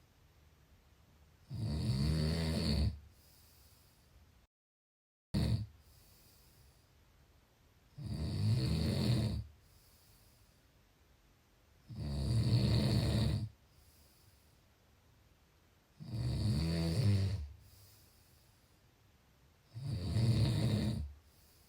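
A person snoring steadily: five long snores about four seconds apart, each lasting about a second and a half, with faint breathing between them. The sound cuts to dead silence for nearly a second about four and a half seconds in.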